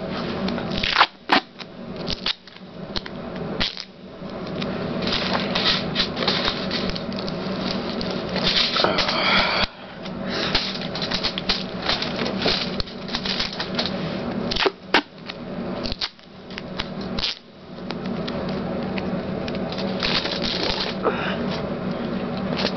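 Tin foil crinkling and rustling as it is handled and taped onto cardboard, with many short clicks and crackles and a few sharp snaps.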